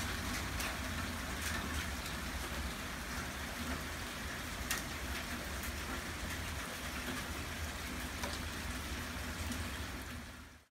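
Heavy rain falling steadily, with a few scattered sharp ticks of hailstones striking. The sound fades out quickly near the end.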